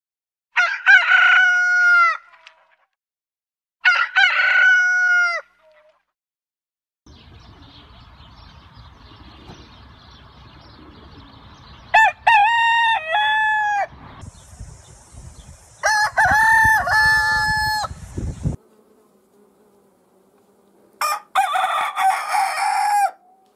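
Roosters crowing: five separate cock-a-doodle-doos from several different birds, each a few short syllables ending in a long held note. Faint steady background noise fills the gaps between some of the crows.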